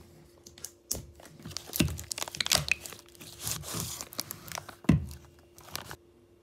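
Close-up crinkling and rustling, as of something crumpled or handled, broken by several knocks; the loudest knock comes near the end, and the handling stops shortly before the end.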